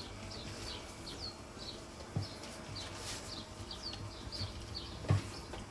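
A small bird chirping over and over in short, downward-sweeping high chirps, with a low steady hum and two dull knocks, one about two seconds in and one near the end.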